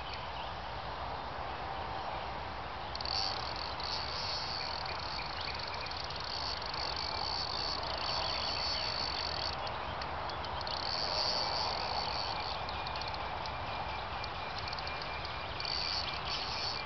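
Insects trilling high-pitched in bouts several seconds long, over a steady outdoor background hiss.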